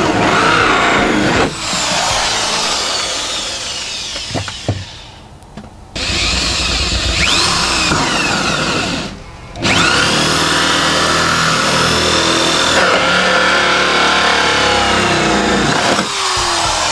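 Ryobi power drill driving a hole saw through the car's plastic rear bumper to open a cut-out for the exhaust tailpipes. The motor's pitch rises and falls as it runs, and the drill eases off twice, around five seconds in and again near nine seconds, before cutting on.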